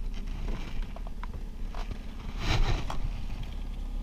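Boat motor running with a steady low rumble, with a brief louder rush of noise about two and a half seconds in.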